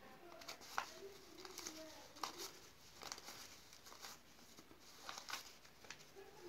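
Paper banknotes rustling and crinkling as a bundle is sorted and counted by hand, with irregular crisp snaps as single notes are flicked apart.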